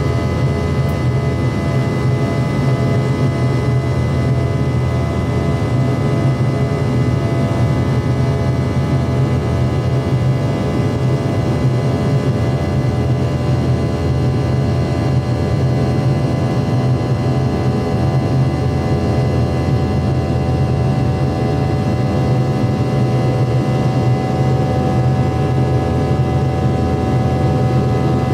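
Jet engines of an American Airlines McDonnell Douglas MD-88 running steadily at high power, heard from on board: a constant low drone with several fixed whining tones over it.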